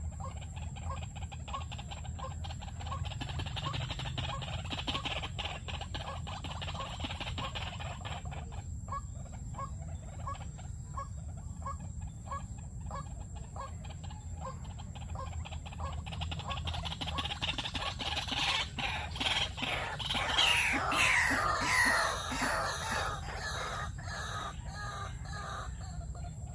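White-breasted waterhens calling: a steady run of short clucking notes, about two a second, then from about eighteen seconds in a louder, busier burst of overlapping calls with falling notes that lasts several seconds before easing off.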